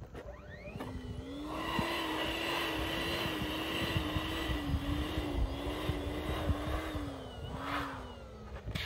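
Small electric air pump running as it inflates a latex balloon: a steady motor hum with rushing air. It spins up about a second in and winds down with a falling pitch just before the end.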